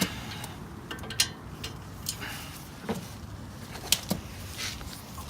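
A few sharp, separate metal clicks and knocks of hand tools and brake parts being handled, over a low steady background hum.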